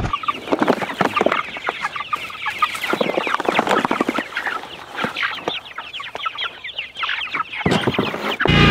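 A flock of young meat chickens cheeping and clucking in quick, overlapping calls. Near the end a riding mower's engine suddenly comes in, running steadily and loudly.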